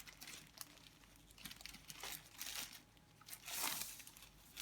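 Packaging crinkling and rustling in irregular bursts as it is handled during an unboxing, with the loudest rustle about three and a half seconds in.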